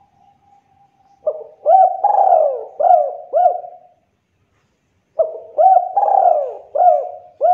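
Spotted dove cooing: two phrases of four or five rolling coos each, separated by a pause of about a second.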